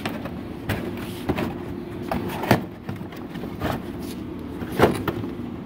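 Cardboard display pieces knocking and rubbing as a printed cardboard tower is fitted down into the slots of a cardboard base box: about five sharp knocks roughly a second apart, the loudest near the end.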